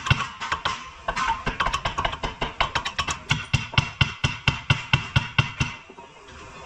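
Ball-peen hammer striking metal on a car's front suspension in a quick, even run of blows, about four a second, that stops about a second before the end. The blows are part of freeing the control arm.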